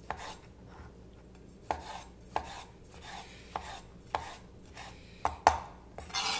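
A sharp chef's knife cutting roma tomatoes on a wooden cutting board: about eight irregular knocks of the blade meeting the board, with a brief scrape at the very end.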